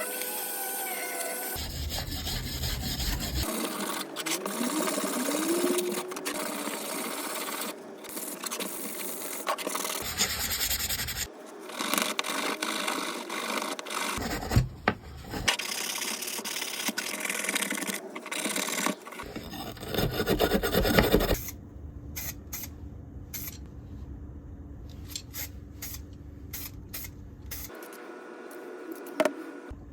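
Rubbing, rasping strokes of hand-filing a workpiece, in a run of short clips cut one after another; quieter in the last third.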